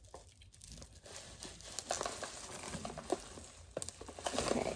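Cardboard shipping box and the wrapped packing inside being handled: scattered rustling, crinkling and small knocks that grow busier and louder in the second half.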